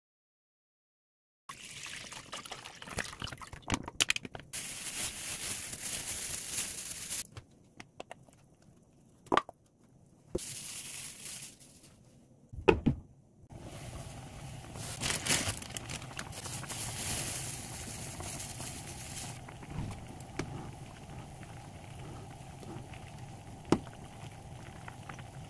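Budae-jjigae (Korean army stew) cooking in a pot: liquid pouring and the stew simmering, a steady bubbling hiss through the second half. A few sharp knocks come about a third and halfway through.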